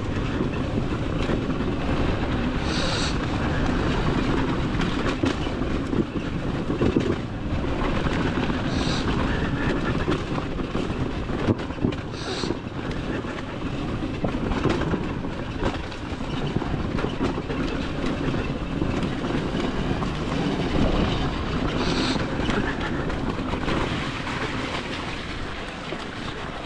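450 cc four-stroke single-cylinder enduro motorcycle engine running under way, the revs rising and falling with the throttle, with a few sharp knocks from the bike over rough ground.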